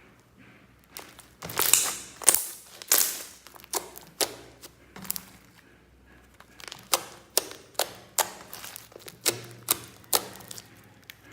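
Slime being poked and pressed, giving a run of sharp, irregular pops and clicks as air pockets burst. The pops are loudest and most crowded about one and a half to three seconds in, and come in a second quicker string near the end.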